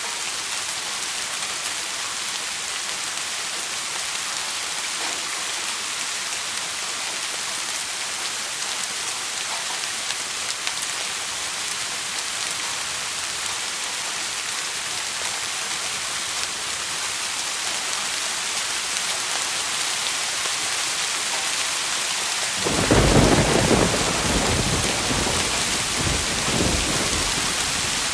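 Steady heavy rain hissing throughout. Near the end a thunderclap breaks in with a loud low rumble that rolls on for several seconds, fading slowly.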